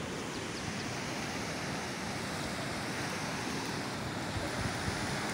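Steady rush of river water tumbling over rocks in rapids.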